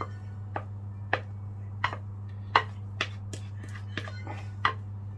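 Kitchen utensil tapping and scraping against a baking tray while cake batter is spread into it: about a dozen sharp clicks at uneven intervals, over a steady low hum.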